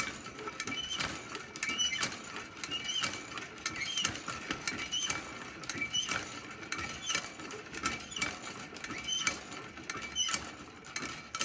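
Old cast-iron hand well pump being worked by its long handle, squeaking with a short rising squeak on each stroke, about once a second. The spout stays dry: the pump is not bringing up water in the cold.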